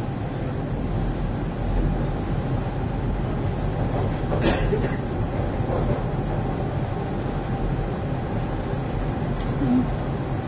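TTC Line 1 subway train running between stations, heard from inside the car: a steady low rumble of wheels and running gear, with one brief sharp clack about halfway through.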